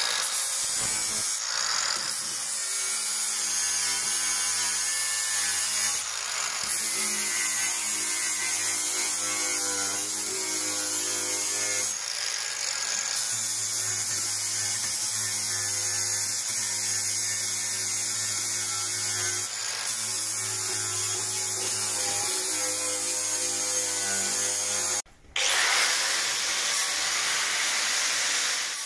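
Angle grinder running steadily as its disc grinds MIG weld beads flat on steel sheet panel, dressing the welds back before painting. The sound cuts out for a moment about 25 seconds in, then carries on.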